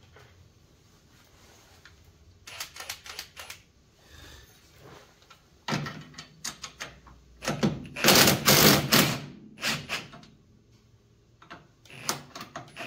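Cordless impact wrench working a nut on a UTV's front suspension: a few short clicking bursts, then a longer run of rapid hammering about eight seconds in.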